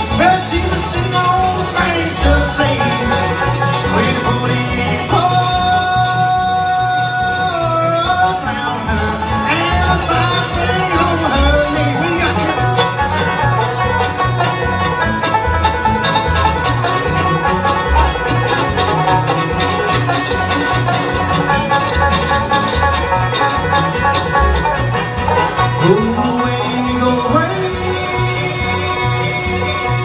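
Live bluegrass band playing: banjo, fiddle, acoustic guitar and upright bass, over a steady beat.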